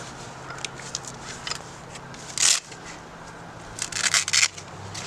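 Packaging of a truck's jack and tool kit being opened and handled: crinkling and rustling with small clicks, a brief loud rustle about two and a half seconds in and a cluster of crackles near four seconds.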